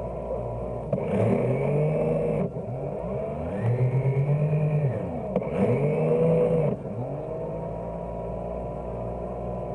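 Motor of a radio-controlled model push tug running with a steady hum and a thin whine. It speeds up and eases off three times, its pitch rising, holding and dropping with each surge.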